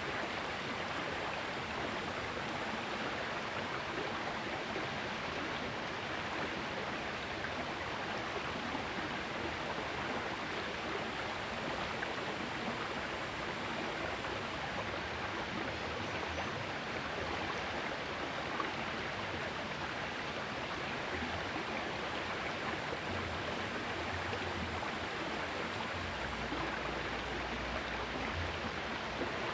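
Small river flowing: a steady rush of running water.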